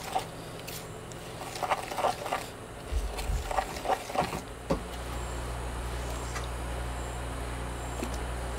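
Light clicks and knocks of hands working groundbait in a small plastic bowl. About five seconds in, a steady low hum takes over.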